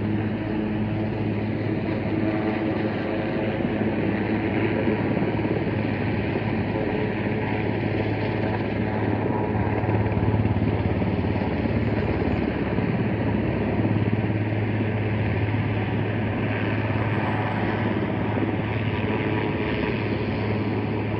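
Helicopter hovering with an underslung load, a steady, even drone.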